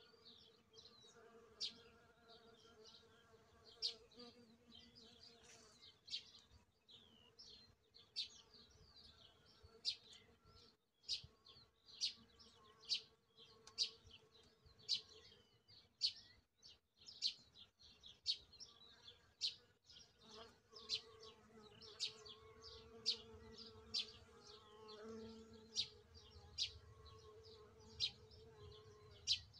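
Bees buzzing faintly while they work the raspberry blossom, the hum coming and going, stronger near the start and again from about twenty seconds in. Over it a bird chirps with short high notes about once a second.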